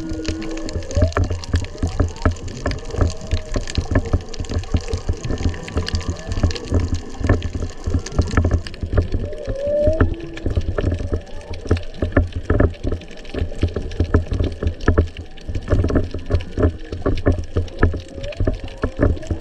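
Humpback whale song heard underwater: several short moans and rising whoops, over a dense crackle of clicks and a low rumble of moving water.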